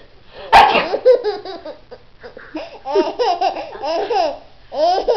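A baby laughing in repeated high-pitched bursts, set off by a sudden sharp burst about half a second in, a fake sneeze.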